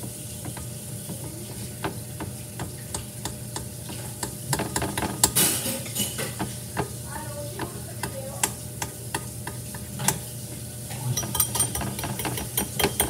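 A spoon stirring melted chocolate in a bowl: irregular scraping and tapping against the bowl, with a few ringing clinks near the end.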